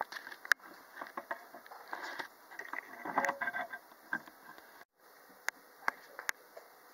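Handling noise from a hand-held camera: scattered sharp clicks and soft irregular rustling.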